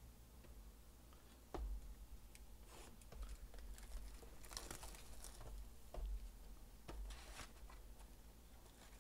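Clear plastic shrink wrap being torn and crinkled off a trading-card hobby box: faint irregular rips and rustles with small clicks, loudest a little past the middle.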